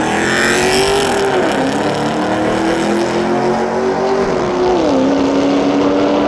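Drag-racing cars launching and accelerating hard away down the strip, a Jeep Grand Cherokee SUV and a Camaro. The engine's pitch climbs and drops sharply at two upshifts, the first just over a second in and the second about four and a half seconds in, with a burst of tyre and wind noise as the Jeep goes past at the start.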